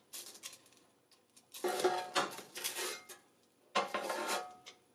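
Silicone-tipped tongs clattering and scraping against a Ninja Foodi air fryer basket and its crisper plate as breaded pork chops are turned over. The sound comes in two short spells, about a second and a half in and again near the end.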